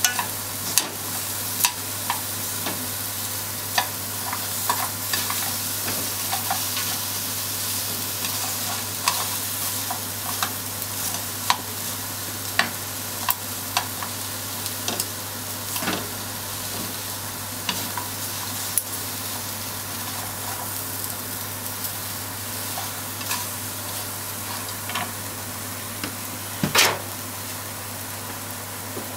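Pork slices and sliced onion sizzling steadily in a nonstick frying pan while being stir-fried, with cooking chopsticks clicking and tapping against the pan at irregular intervals; one louder knock near the end.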